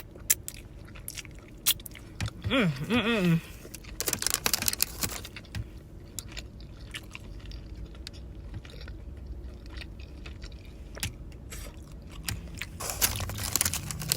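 A person biting and chewing a crawfish egg roll, with repeated crunches and wet chewing clicks, and a short hummed "mm" about three seconds in.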